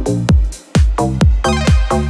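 Electronic dance music remix with a heavy, pitch-dropping kick drum about twice a second. The beat drops out for a moment about half a second in, then comes back.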